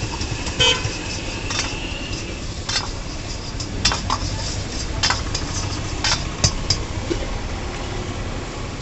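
A metal ladle scraping and clinking against a steel wok as vegetables are stir-fried, about eight irregular strokes, one ringing briefly just under a second in. A steady low rush and sizzle runs underneath.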